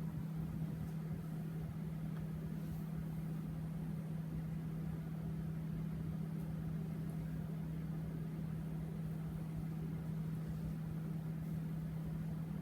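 Vintage 1984 Kmart (Lakewood) K-223 box fan running steadily, its motor giving a constant low hum over a soft rush of air.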